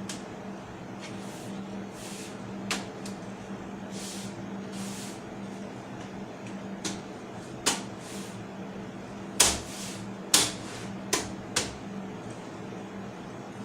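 Scattered sharp clicks and knocks of desktop computer hardware being handled, with a run of louder clicks about nine to twelve seconds in, over a steady low hum.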